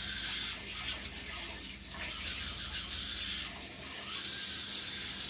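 Hot jute-leaf curry in an aluminium pot giving off a steady sizzling hiss with fine crackle.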